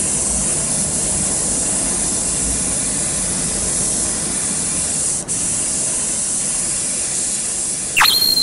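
Compressed-air paint spray gun hissing steadily as clear coat is sprayed, with a brief break about five seconds in. Near the end a whistle sound effect rises sharply and holds a high tone.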